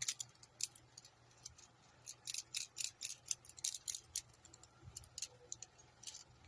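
A quick, irregular run of light sharp clicks and ticks, thickest about two to four seconds in, over a faint low hum.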